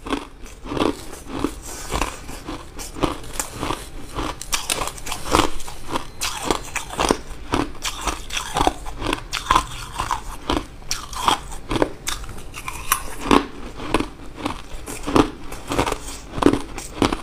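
Mouthfuls of crushed white ice being bitten and chewed: a steady run of sharp, crisp crunches, about two or three a second.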